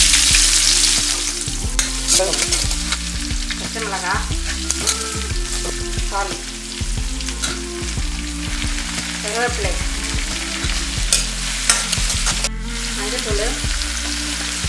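Chopped onions and green chillies, then tomatoes, sizzling in hot groundnut oil in a steel kadai, with the hiss loudest in the first second or so. The steel ladle stirs them, with repeated scrapes and clicks against the pan.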